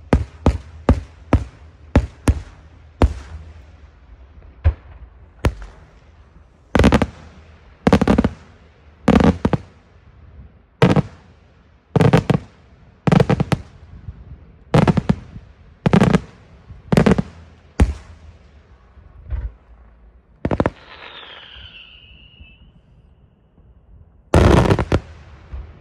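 Daytime fireworks: aerial shells bursting with loud bangs, several a second at first, then about one a second, each trailing off. Past the middle, a falling whistle lasts about two seconds, and a quick cluster of bangs follows near the end.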